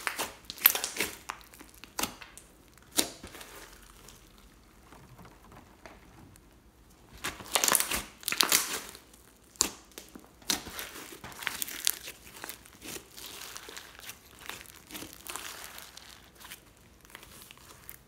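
Hands squishing, pressing and stretching a thick orange glitter slime with makeup mixed in. It makes rapid clicks in irregular bursts, loudest around eight seconds in and quieter toward the end.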